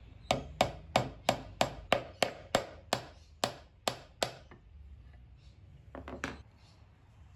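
Claw hammer tapping a 6mm oak dowel into a drilled hole to pin a mortise and tenon joint. About a dozen sharp, even blows come at roughly three a second for four seconds, followed a couple of seconds later by a few lighter knocks.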